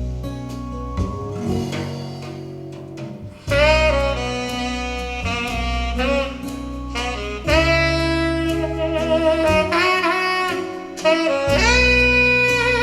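Instrumental break of a slow jazz ballad played back through a Klipsch RP-6000F floor-standing speaker on a Marantz PM6007 amplifier: soft guitar and bass backing, then a saxophone solo with vibrato comes in about three and a half seconds in and plays in phrases.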